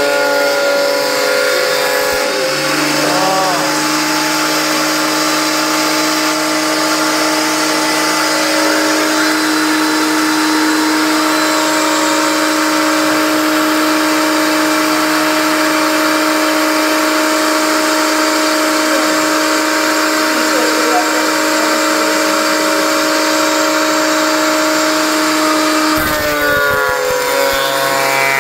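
13-inch benchtop thickness planer running and planing wood: a loud, steady motor and cutterhead whine that settles to a lower, steady pitch about two seconds in and shifts again near the end.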